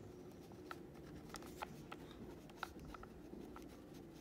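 Zebra pen writing on a paper index card: faint, irregular scratches and light ticks of the pen tip on the card, over a low steady room hum.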